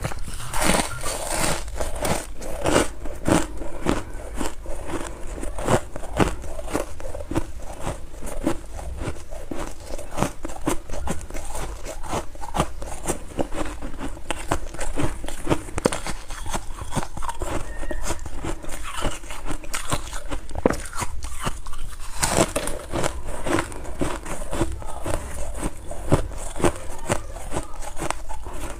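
A person biting and chewing crunchy freezer frost: a continuous run of crisp crunches and crackles close to the microphone, with an especially loud flurry of bites about three-quarters of the way through.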